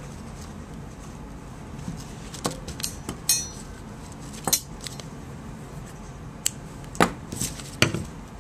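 Metal surgical instruments, a needle holder and forceps, clicking and clinking several times while a suture is placed. One clink, a few seconds in, rings briefly.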